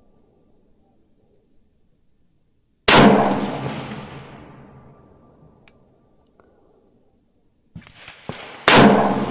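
Two rifle shots from a .223/5.56 AR-15-style rifle fired about six seconds apart, each a sharp crack followed by a long echo dying away over a couple of seconds. A few faint ticks come just before the second shot.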